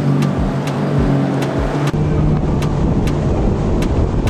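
Background music with a steady beat. About halfway through, the dense rushing noise of a bass boat running at speed on its outboard, with wind on the microphone, comes in under it.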